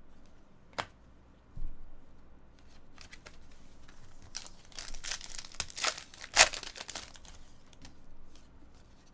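Foil wrapper of a 2013 Panini Elite Extra Edition baseball card pack being torn open and crinkled: a dense run of sharp crackling from about three to seven seconds in, with a few light clicks of cards being handled before it.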